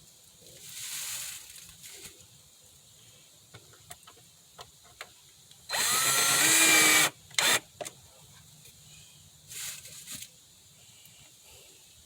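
Power drill driving screws to mount a speaker on a plywood baffle: one main run of about a second and a half with a rising motor whine in the middle, a short blip just after, and softer brief runs near the start and near the end, with small clicks of handling between.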